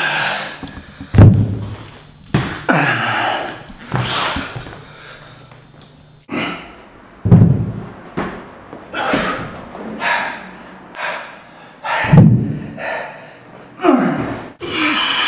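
Man doing dumbbell half burpee presses: three heavy thuds about five seconds apart as he drops to the floor with the dumbbells. Between the thuds come repeated hard, noisy exhalations and grunts of effort.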